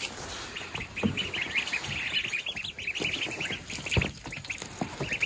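Twelve-day-old ducklings peeping, many short high peeps overlapping in a fast, unbroken chatter, with a couple of soft knocks about a second in and near the end.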